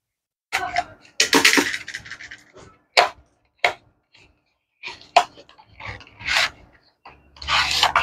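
A utility knife slitting the seal of a small cardboard box, then the box being opened and its inner tray slid out. Irregular scraping and rustling of cardboard, with a few sharp clicks in the middle and a longer rustle near the end.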